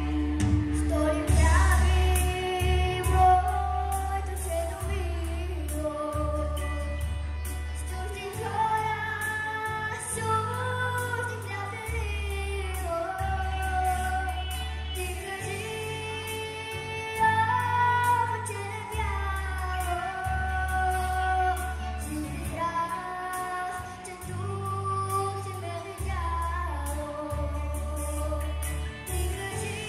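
A young girl singing a pop-style song into a microphone over a backing track with a strong, steady bass line, amplified in a large hall. The bass drops out briefly a few times.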